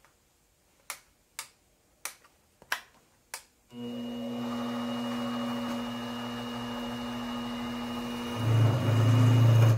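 Several sharp clicks, then the Sieg X2D mini mill's spindle motor starts and runs with a steady whine and hum. Near the end a much louder low hum takes over for about a second and a half before the motor cuts off suddenly. This is a test run of a faulty motor drive that keeps overloading, after its trim pot was turned another eighth of a turn.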